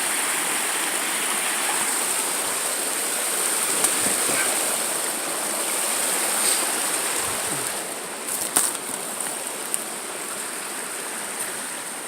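Creek water rushing steadily through a small beaver dam, with a few sharp clicks about eight and a half seconds in.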